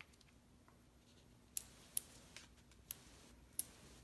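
Paper-craft handling: foam adhesive dimensionals being peeled from their backing and cardstock being handled, heard as four short, sharp clicks in the second half.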